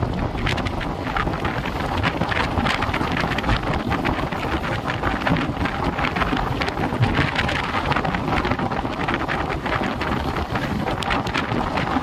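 Running passenger train heard from an open door: steady wind buffeting the microphone over the rumble of the coach, with frequent clicks and knocks from the wheels on the rails.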